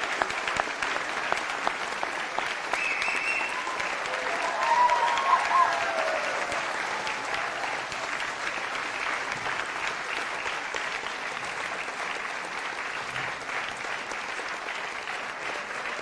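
Audience applauding steadily in a theatre. A few voices call out briefly between about three and six seconds in, at the loudest point, and then the clapping eases slightly.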